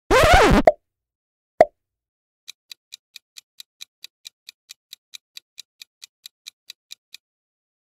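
Quiz-video sound effects: a short, loud cartoon plop as the next item appears, then a single click about a second and a half in. After that comes the countdown timer's clock-like ticking, a little over four ticks a second, which stops shortly before the end.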